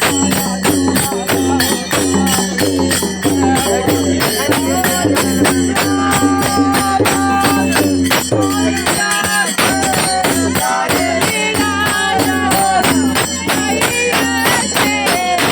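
Folk devotional music played loud: a melody line over a steady low drone, with fast, evenly beating jingling percussion like a tambourine or rattle.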